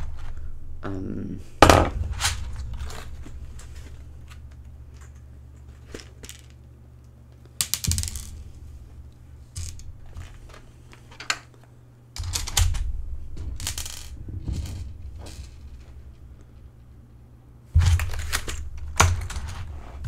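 Small metal screws clinking onto a desk and a plastic keyboard case being handled and set down: a string of sharp clicks and knocks, the loudest about two seconds in and twice near the end, over a low steady hum.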